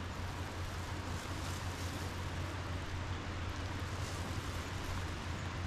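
Steady outdoor ambience: an even hiss over a constant low hum, with no distinct events.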